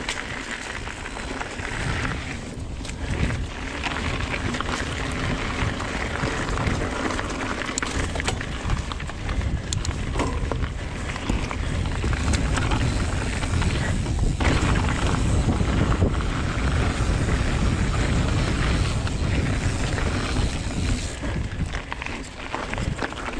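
Mountain bike ridden along a dirt trail: wind buffeting the action camera's microphone as a steady low rumble, with tyre noise and scattered clicks and knocks from the bike over rough ground. It gets louder about halfway through.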